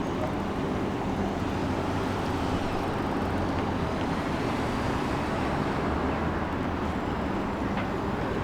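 Transit-station ambience: a steady, low rumble of vehicle engines with a continuous hum, and no sudden sounds.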